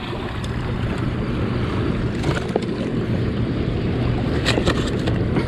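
Steady rushing of water below the dam with a constant low hum, and a few short clicks about two seconds in and again past the four-second mark while the landed striped bass is handled on the rocks.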